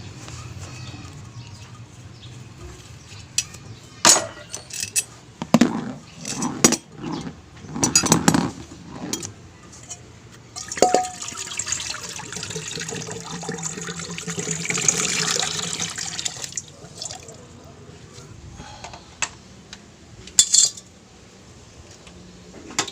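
Workshop handling sounds: metal tools and parts clinking and knocking several times, then a hiss lasting about five seconds midway, like a spray or a blast of air.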